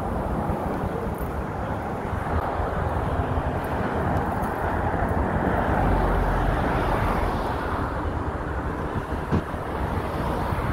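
Outdoor city street noise: a steady rush of traffic-like noise that swells about halfway through, with a deep rumble at its peak, then eases off.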